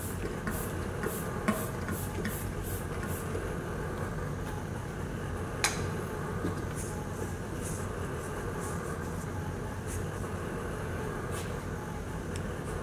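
Steady low hum with scattered light clicks and short rustles as objects on the board are handled, including two sharp clicks, about a second and a half in and again near six seconds.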